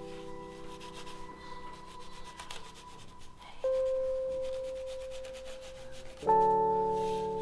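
Background music: slow, sustained keyboard chords that fade out gradually, with a new chord struck about three and a half seconds in and another a little after six seconds.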